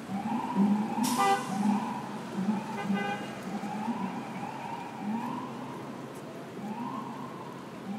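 Emergency vehicle siren sounding in a repeating rising sweep, about once a second, over street traffic. Two short horn blasts cut in, about one second in and again near three seconds.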